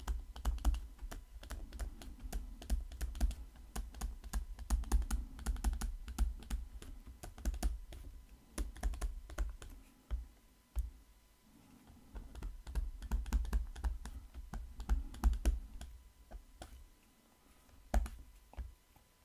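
Stylus tapping and clicking on a tablet during handwriting: quick runs of sharp clicks with dull low knocks, broken by a couple of short pauses.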